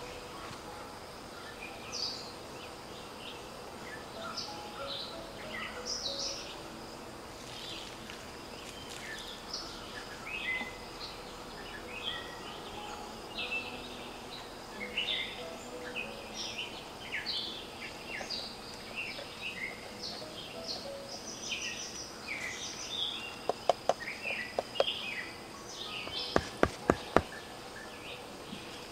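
Birds chirping and calling over a steady outdoor background. Near the end come a series of sharp knocks: a knife chopping minced pork on a wooden chopping board.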